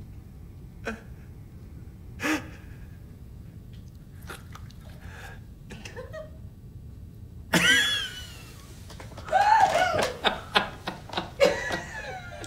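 Quiet room tone with a few faint brief sounds. Then laughter breaks out about seven and a half seconds in and carries on in short bursts.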